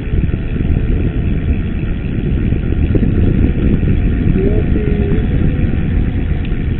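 Loud wind buffeting the microphone of a camera on a moving mountain bike: a dense, fluttering low rumble.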